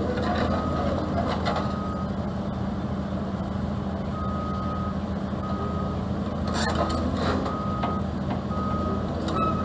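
Kobelco SK210-9 excavator's diesel engine running steadily while a warning alarm sounds a string of short, evenly pitched beeps. The beeps pause for about two seconds early on, then resume. A couple of sharp metallic knocks come about two-thirds of the way through.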